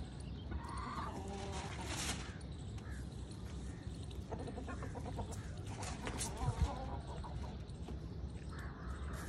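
Chickens clucking now and then in short bouts, over a steady low rumble of wind on the microphone. A single dull bump about six and a half seconds in.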